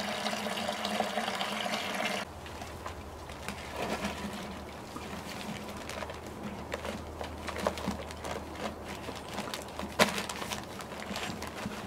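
Water pouring from a plastic gallon jug into a plastic bucket for about two seconds and stopping abruptly. Then a dry powdered mix is shaken out of a paper bag into the bucket: quieter rustling and paper crinkling with small knocks, and one sharper knock about ten seconds in.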